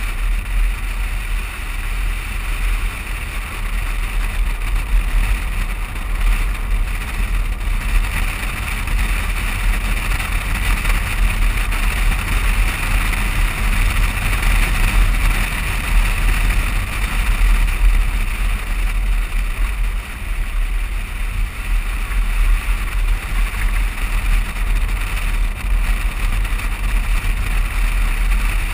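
Wind buffeting an action camera mounted on the outside of a moving vehicle, a steady low rumble mixed with tyre and road noise as the vehicle drives along at speed.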